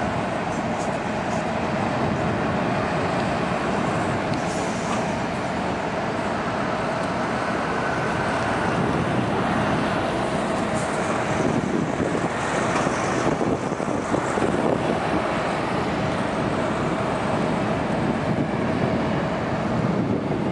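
Steady rumbling noise with a faint constant hum from the cruise ship Artania's machinery as the ship passes close by.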